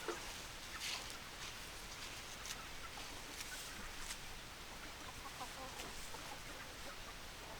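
Hens clucking: scattered short clucks, with a few brief sharp clicks over a faint steady hiss.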